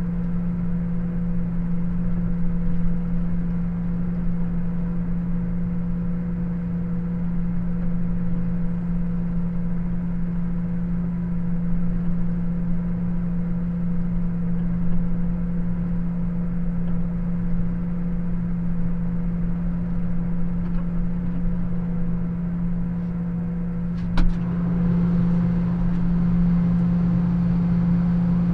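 Fendt combine harvester's diesel engine running steadily as the machine travels, a constant droning hum. Near the end, a single sharp knock, after which the engine sounds a little louder.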